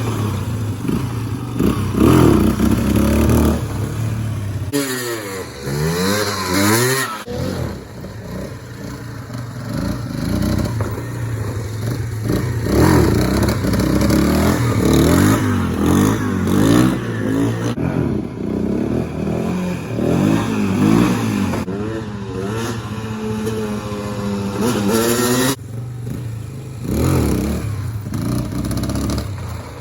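Dirt bike engine revving while riding. Its pitch climbs and drops again and again as it accelerates, shifts and backs off.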